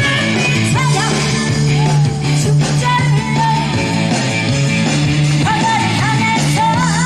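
Trot medley performed live: a singer's voice with a wide vibrato over a loud backing band with a steady bass line.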